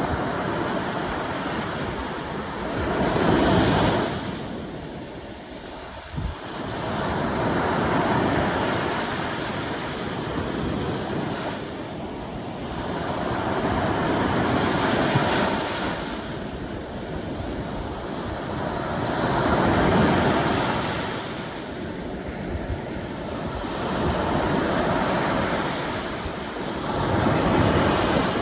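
Sea waves breaking and washing on the shore. The surf swells and falls back every few seconds.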